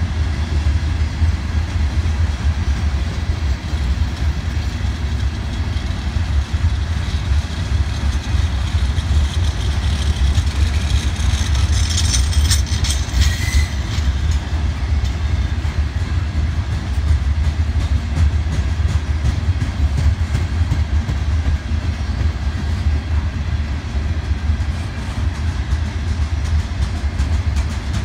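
Loaded covered hopper cars of a freight train rolling past, a steady low rumble of wheels on rails. A brief high-pitched squeal rises above it about halfway through.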